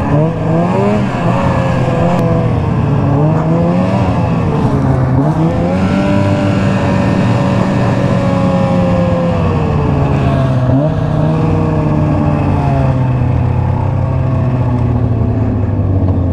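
Arctic Cat ZL600 snowmobile's two-stroke engine running under way. Its pitch rises and falls with the throttle over the first several seconds, then holds fairly steady through the second half.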